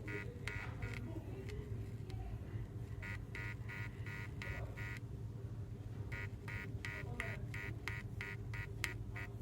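Small powered computer speaker playing music from a phone, a rhythmic run of short high notes at about four a second that stops twice for a second or so, over a steady low hum.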